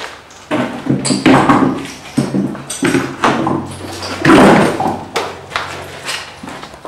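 Irregular footsteps, knocks and clatter of people moving about a room, with a faint low hum under the middle.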